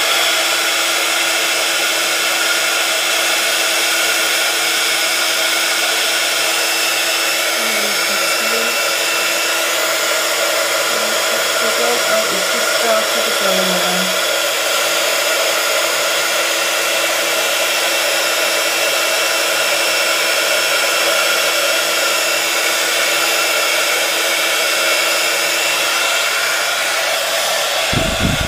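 Craft embossing heat tool running with a steady fan whir, blowing hot air to melt embossing powder on a stamped piece. It cuts off suddenly near the end.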